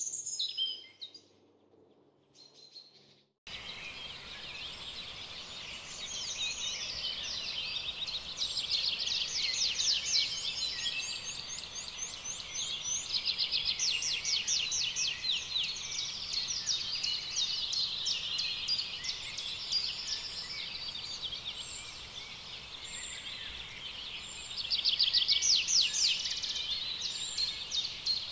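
Several birds chirping and calling at once, overlapping runs of quick high notes over a faint steady outdoor hiss, growing louder near the end.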